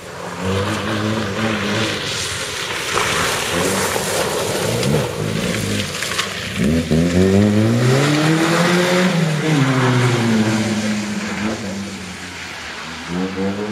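Rally hatchback's engine revving hard, its pitch climbing and dropping several times as the driver works through the gears, with tyre noise on loose gravel and mud. About six and a half seconds in the note falls sharply, then climbs steeply to its highest point before falling away.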